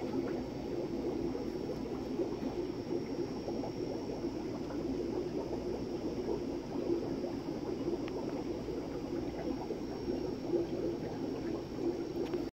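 Steady running-water noise from aquarium tanks' filtration, with no changes or distinct events.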